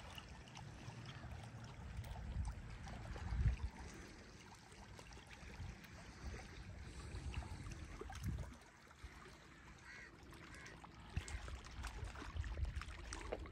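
Open-air ambience at the water's edge: wind rumbling on the microphone in uneven gusts over a faint wash of water, with a few short bird calls about ten seconds in.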